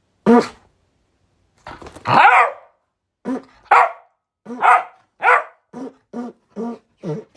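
Cockapoo barking repeatedly: a single bark, then a longer drawn-out call about two seconds in, followed by a run of barks that grow shorter and come about twice a second near the end.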